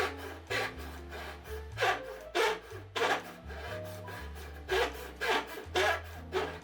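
Repeated scraping strokes of a hand tool working wood, about two a second, over background music with a low bass line.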